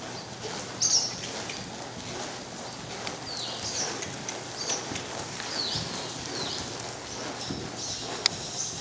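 Small birds chirping, a string of short falling chirps repeated every second or so, the loudest about a second in, with a single sharp click near the end.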